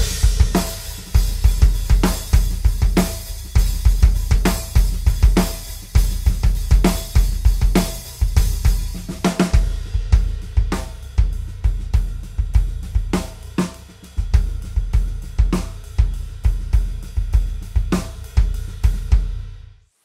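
Drum kit played in a steady groove: kick drum fitted with a Remo Emperor coated double-ply head, with snare, hi-hat and cymbals. The kick has an open but controlled sound, typical of a double-ply head. The playing stops just before the end.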